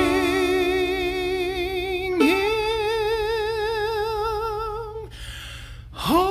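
Male tenor voice singing slow, long held notes with a wide vibrato. A short breath comes about five seconds in, then a new note slides up into a steady hold near the end.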